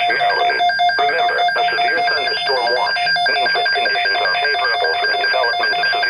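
Weather alert radios sounding their alert alarms together: rapid, even beeping in several steady pitches, the receivers set off by an incoming weather alert. A weather-radio voice broadcast goes on underneath.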